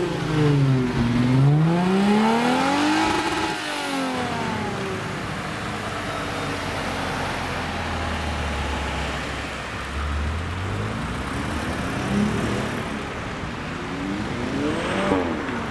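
Alfa Romeo car engines revving: one rises and falls in pitch over the first few seconds as it is blipped, a low rumble follows, and another short rev rises and falls near the end.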